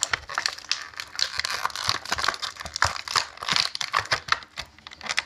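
Stiff plastic toy packaging crinkling and crackling in a dense, irregular run of small clicks as hands work a figure out of it.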